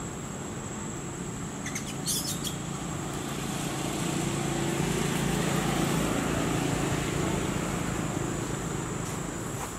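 A low engine drone swells through the middle and fades toward the end, with a brief high chirp about two seconds in and a thin steady high whine throughout.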